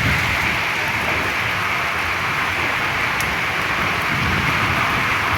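Heavy rain pouring in strong wind: a steady, even rush of noise.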